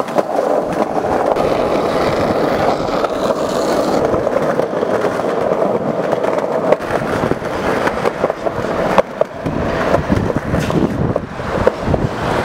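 Skateboard wheels rolling on a concrete sidewalk: a steady rumble broken by frequent short clacks as the boards pass over pavement joints and cracks.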